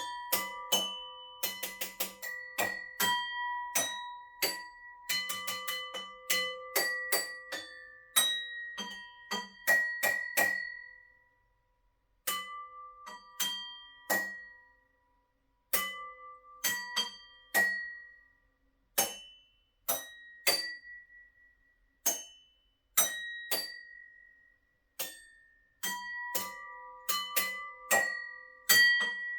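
A slow melody of struck bell-like notes, each with a sharp attack and a ringing decay. The notes come in quick clusters at first and more sparsely after about ten seconds, with short pauses between phrases.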